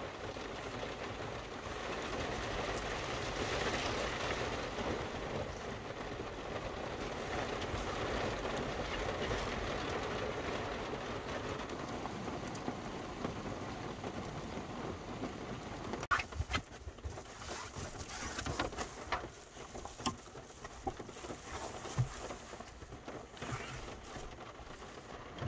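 Heavy rain falling on a van's roof and windscreen, heard from inside the van as a steady patter. About 16 seconds in it turns quieter and scattered clicks and knocks of things being handled come through.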